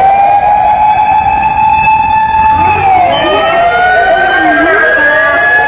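Emergency vehicle's motor siren wailing. Its pitch holds high, slides down over a couple of seconds from about halfway through, then winds back up near the end. A second siren tone sweeps up and down over it in the second half.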